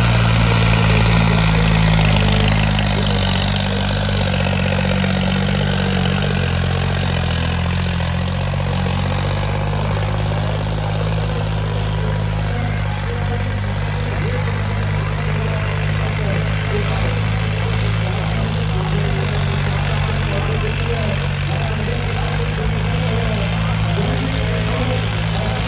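John Deere 5310 tractor's diesel engine working hard at full throttle as it drags a cultivator through the soil, a steady, loud low drone.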